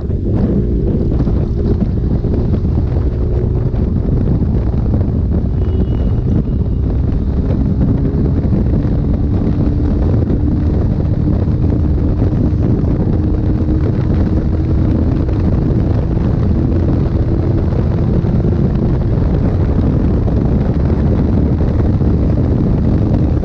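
Heavy wind noise on the microphone of a motorcycle at highway speed, with the KTM 390 Duke's single-cylinder engine note underneath, rising slowly in pitch as the bike accelerates.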